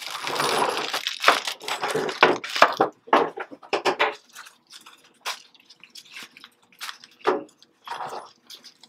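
Crinkling and rustling of a disposable infant blood pressure cuff and its plastic packaging being handled and opened, dense for about four seconds, then scattered lighter clicks and rustles as the cuff is handled.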